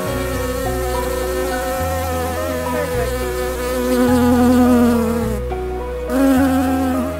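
Buzzing like a flying bee, a cartoon sound effect, over background music with held notes and a bass line that changes about once a second.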